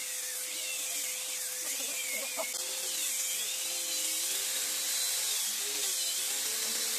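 Hand-held electric disc sanders running against teak boards: a steady high hiss of sanding, with the motor whine wavering up and down in pitch as the sanders are pressed and moved over the wood.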